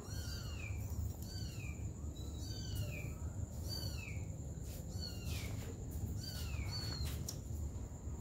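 A young kitten mewing over and over: a steady run of short, high-pitched mews that fall in pitch, about one or two a second.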